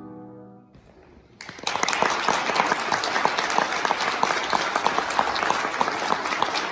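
The last chord of a grand piano fades away; after a short pause an audience breaks into applause, with many individual sharp claps.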